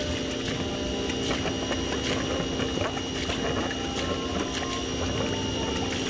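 A steady stream of water splashing from a plastic drain pipe onto a metal floor drain grate: the dirty runoff from power-washing the inside of an air conditioner.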